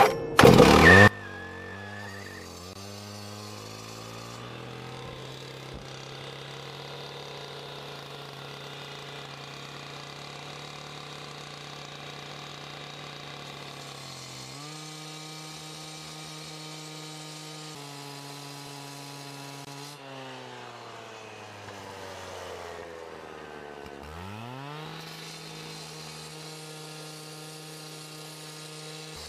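Handheld two-stroke petrol cut-off saw starting with a few loud bursts in the first second, then running steadily. It is throttled up about halfway through and again near the end as the blade cuts into the concrete curb.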